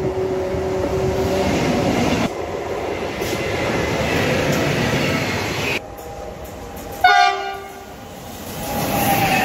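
Electric freight trains running past on the track, heard in several abrupt cuts: steady rolling and rumbling of the locomotives and wagons, with a short loud horn blast from a locomotive about seven seconds in.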